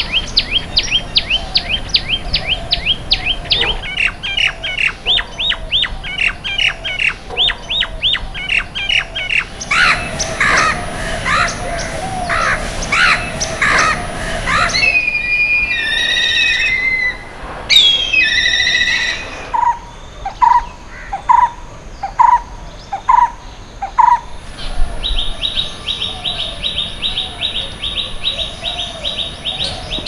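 Several different wild birds calling in turn, each passage cutting suddenly to the next: fast repeated chirps, then louder scattered calls, then descending whistled calls, then a string of single clear notes about a second apart, and near the end a quick, even run of high notes.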